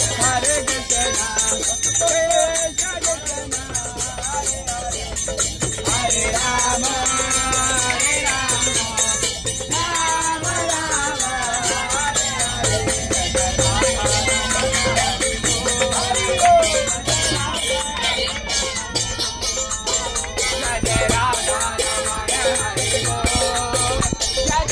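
Devotional kirtan sung by a group, with small brass hand cymbals (karatalas) struck in a fast, steady rhythm under wavering sung lines.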